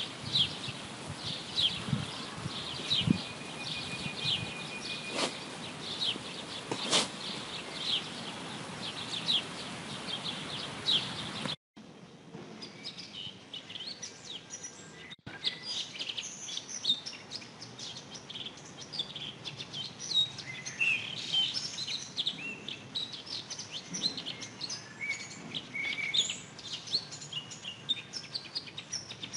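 Wild songbirds calling: short chirps repeated every half second or so, then, after an abrupt cut about twelve seconds in, a denser chorus of several birds singing at once.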